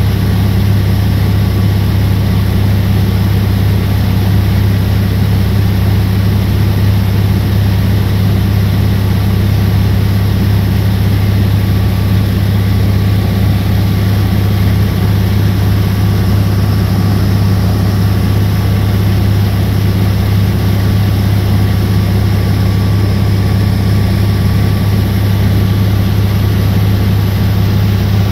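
A small passenger boat's engine running steadily at cruising speed: a loud, even drone with a strong low hum and rushing noise above it, unchanging throughout.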